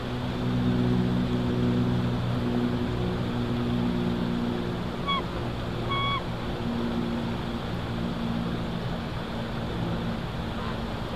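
Bald eagle on the nest giving two short, high call notes about five and six seconds in, each dropping slightly at the end. Under it a steady low mechanical drone, like a distant engine, with a light hiss of wind.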